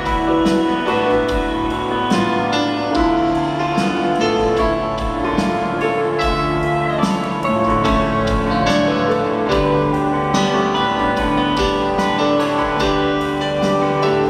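Live band music in an arena, played over a big PA: a slow song with long held chords and a steady beat of cymbal strikes about twice a second.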